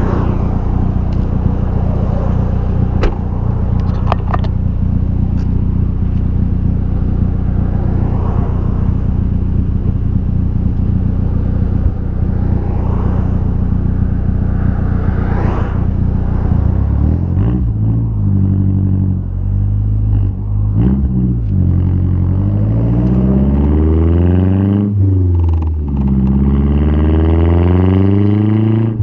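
2012 Mazdaspeed 3's turbocharged 2.3-litre four-cylinder running through a single-exit axle-back exhaust. It idles steadily at first; from about halfway the engine speed rises and falls several times.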